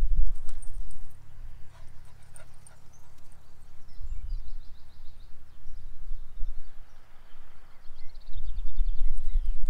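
Wind buffeting the microphone in gusts, a low rumble that is loudest at the start, about four seconds in and near the end. Between the gusts, songbirds trill briefly in the background.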